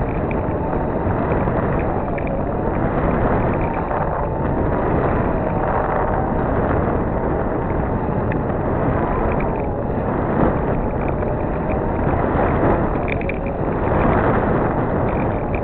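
Wind buffeting the microphone of a camera mounted at the top of a sailboat's mast, a steady low rumble with a faint wavering whistle.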